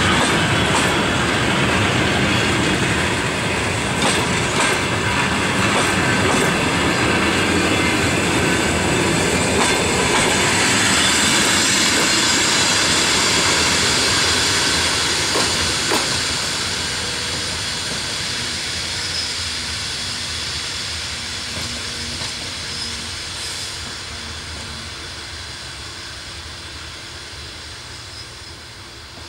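Passenger coaches of an arriving train rolling past, the wheels clicking over rail joints. The sound fades steadily over the last dozen seconds as the tail of the train moves away.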